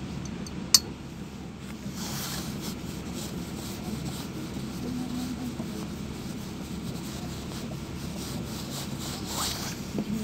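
Low, steady rumble inside a LiAZ 5292 city bus, made by its engine and cabin in slow traffic. A sharp click comes about a second in, and short rubbing sounds come at about two seconds and again near the end.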